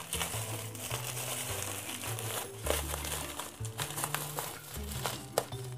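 Black plastic packaging crinkling and rustling as hands pull it open, with a sharp click near the end. Background music with a steady bass line plays underneath.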